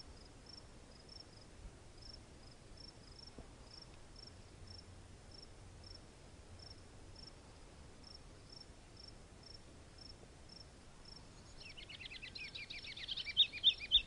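Faint cricket chirping, short high chirps repeating about twice a second. Near the end a songbird starts singing a quick run of chirps, louder than the crickets.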